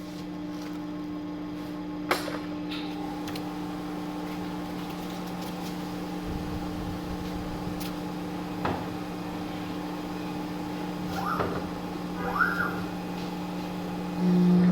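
Paper-cutting guillotine machine humming steadily, with a few sharp clicks and two short squeaks near the end.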